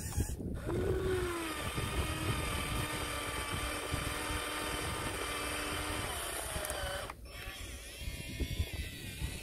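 Electric motors of a Huina RC excavator whining as the arm lifts the bucket out of the water. The whine starts with a short rising glide about half a second in, then holds one steady pitch and stops about seven seconds in, over a constant low rumble.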